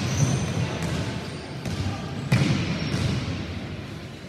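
A basketball bouncing on the hardwood court, with the strongest bounce about two seconds in, over the steady background noise of players and spectators in the gym.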